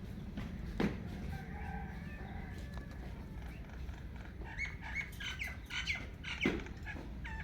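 Indian ringneck parakeet giving a quick series of short chirping calls in the second half, with fainter calls earlier and a single sharp click about a second in, over a steady low hum.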